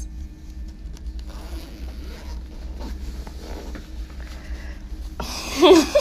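Clothing rustling as trousers are handled, over a low steady hum, then a brief loud voice cry near the end.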